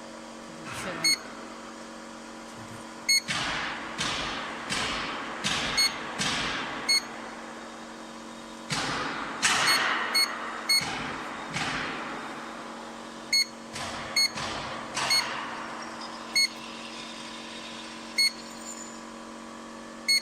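Silage baler control panel beeping with each button press, a dozen short beeps at uneven intervals over a steady machine hum. Between the beeps come repeated bursts of noise that fade out over about a second.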